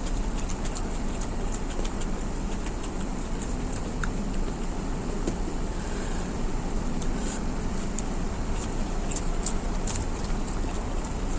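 Small wet clicks and crunches of chewing over a steady rushing background noise.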